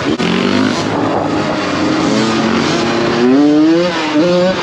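Dirt bike engine running at high revs, holding fairly steady and then revving up about three seconds in.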